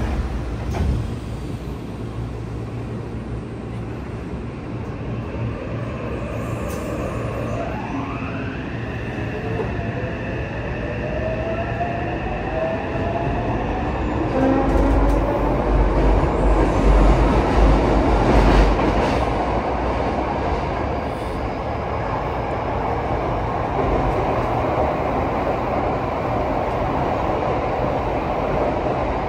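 Mitsubishi IGBT-VVVF inverter and traction motors of a Yokohama Municipal Subway 3000S-type train pulling away, heard from inside the car. A short thump comes about a second in. The motor whine then rises in pitch over several seconds as the train accelerates, and louder wheel and running noise in the tunnel takes over from about halfway.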